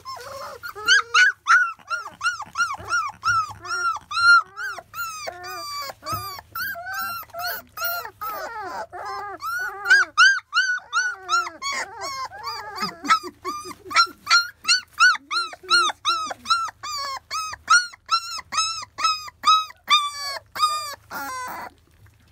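A litter of 25-day-old Labrador retriever puppies whimpering and squealing as they crowd around the food dish: a steady stream of short cries, each rising and falling, several a second and often overlapping.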